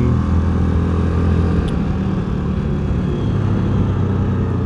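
Access Shade 850 Xtreme quad's engine running steadily while riding along at road speed; its low note eases slightly just under two seconds in.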